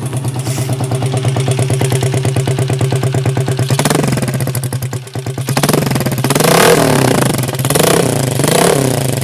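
Honda CG 125 Today's single-cylinder four-stroke engine idles for a few seconds, then is revved in several short throttle blips in the second half. It runs loud, blowing through a muffler with a big rusted-through hole.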